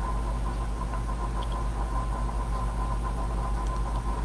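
Steady low background hum with a thin steady high tone above it, holding level throughout, with no speech.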